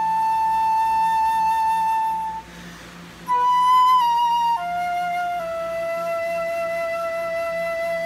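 Unaccompanied flute playing a long held note, a short breath about two and a half seconds in, then a higher note that steps down to a long, lower held note.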